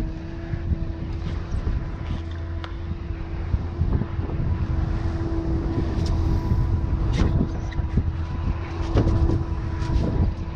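Honda outboard motors running steadily at trolling speed, a constant engine tone over the rush of the wake and wind. A few sharp knocks sound during it.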